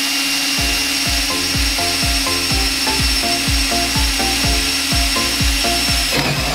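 Power drill boring a hole through an aluminium angle strip, a steady whine and grind that stops near the end. Background music with a steady thudding beat comes in about half a second in.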